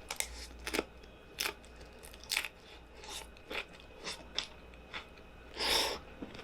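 Tortilla chips crunched while being chewed close to the microphone: irregular sharp crunches about every half second, with a longer, louder crunch near the end.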